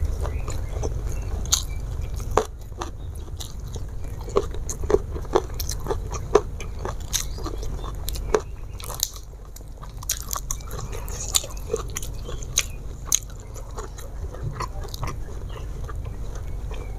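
Close-miked eating by mouth: wet chewing and biting of food by hand, raw leaves among it, with irregular sharp crunches and smacks scattered throughout. A steady low hum sits beneath.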